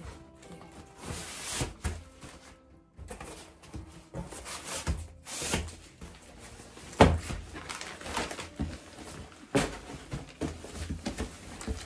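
Rustling and knocking as a sheet of plastic corrugated board is slid into the base of a fabric storage case and the fabric is pressed and smoothed around it, with a sharp knock about seven seconds in. Light background music plays underneath.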